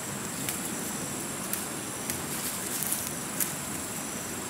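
Leaves rustling and stems snapping as leafy plants are picked by hand, with several sharp snaps over a steady hiss and a thin high-pitched whine.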